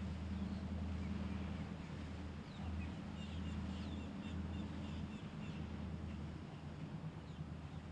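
Boat engine running with a steady low drone that fades near the end. A bird chirps a quick run of high notes about three seconds in.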